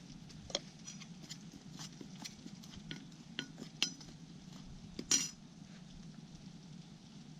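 A spoon clinking and scraping against a bowl as toasted rice powder is spooned into jaew dipping sauce and mixed, with scattered light clicks and a louder clatter about five seconds in.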